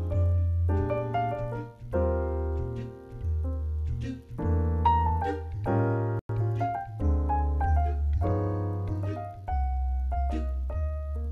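Piano playing a slow bossa nova ballad, with chords held for about a second each over a steady deep bass line. The sound cuts out completely for an instant about six seconds in.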